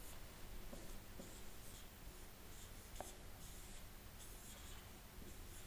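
Marker pen drawing on a whiteboard: a string of short, faint strokes, with a small tap about three seconds in.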